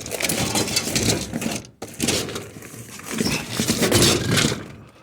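Scrap being gathered and handled: rough clattering and scraping in two long stretches, the second ending about four and a half seconds in.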